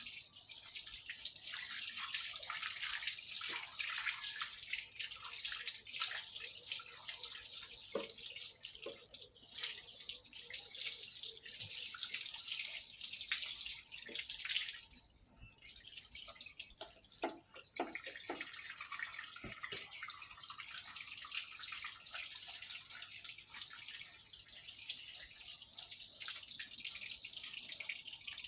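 Running water rinsing a turmeric and coconut-oil paste off a dog's coat: a steady hiss with light splashes and knocks, which briefly drops away about halfway through and then resumes.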